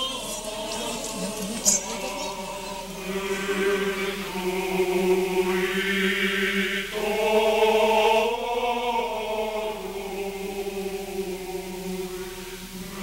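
Choir chanting Orthodox liturgical chant in long held notes that change pitch about halfway through. A brief click about two seconds in.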